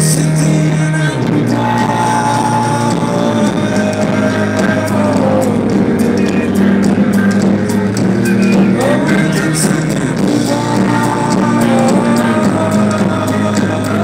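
Amplified live band music from a festival stage PA, with a singing voice or melody line gliding over steady bass, heard from within the crowd.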